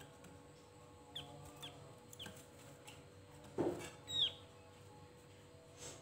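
Short, sharp chirps from a caged Javan grey-throated white-eye (opior jawa), each a quick downward slide, spaced a second or so apart, with the loudest chirp about four seconds in. A short thump comes just before that loudest chirp.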